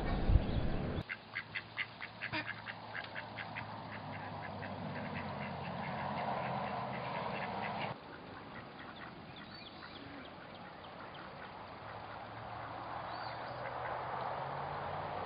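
Mallards quacking: a quick run of quacks, about five a second, starts about a second in and fades over some three seconds, with a few faint calls later. Before that, a low rumble with one thump is cut off abruptly.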